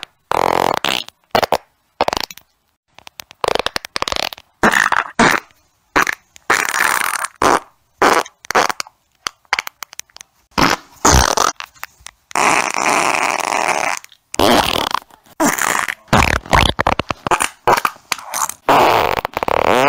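A string of human farts, one after another, recorded on a phone: mostly short, rough bursts and a few longer ones, with cuts of dead silence between them. The longest runs close to two seconds, a little past the middle.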